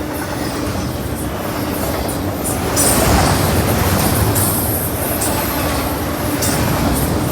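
Freight train rolling past on the CPKC MacTier line: a steady rumble of wheels on rail with brief high-pitched wheel squeals, growing louder about three seconds in.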